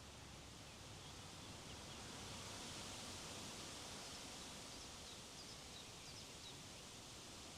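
Wind blowing steadily outdoors, with a few faint high bird chirps in the second half.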